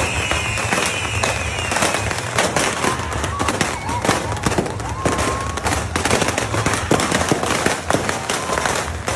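Dense barrage of fireworks and beehive rockets going off: rapid crackling pops and bangs with no let-up. In the first couple of seconds several whistling rockets slide down in pitch over the crackle.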